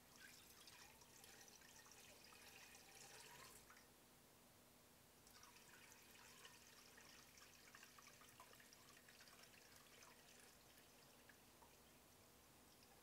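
Faint pouring and splashing of palm nut extract as it runs through a fine mesh strainer into a stainless steel pot, with a short lull about four seconds in.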